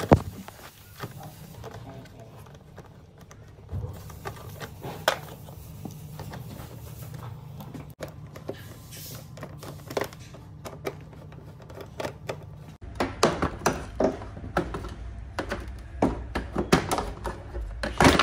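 Scattered clicks and knocks of hand tools and scooter body parts being worked on during disassembly, growing busier and louder in the last few seconds.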